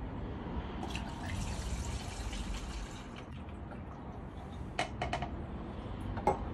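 Diesel fuel poured from a small plastic cup through a funnel into a go-kart's tank, a steady pouring hiss for a few seconds, followed by a few light knocks of the cup against the funnel near the end.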